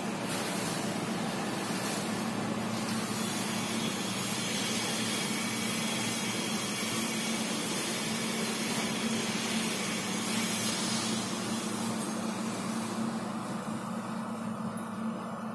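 Nissan SR20 2.0-litre four-cylinder engine on a test stand, idling steadily on its original factory wiring: a constant low hum with a hiss over it.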